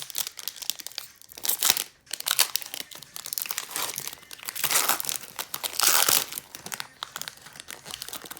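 Foil trading-card pack being torn open and crinkled by hand, with irregular crackling and several louder bursts of rustling and tearing.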